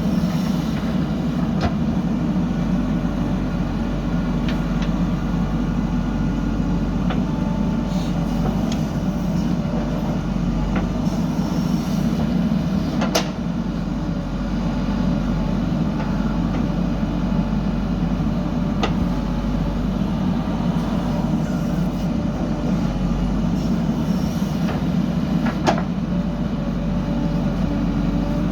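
Heavy diesel engine of a JCB backhoe loader running steadily at working revs, with several sharp knocks now and then, the loudest about halfway through.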